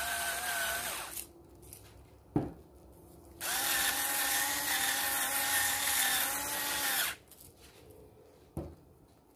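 Electric spice grinder running in two bursts, a steady motor whine over the hiss of grinding. The first burst stops about a second in; the second runs for about three and a half seconds in the middle. A sharp knock comes between the bursts, and a smaller one near the end.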